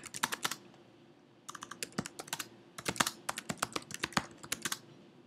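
Typing on a computer keyboard: a quick run of keystrokes, a pause of about a second, then a steady stream of key clicks as a sentence is typed out.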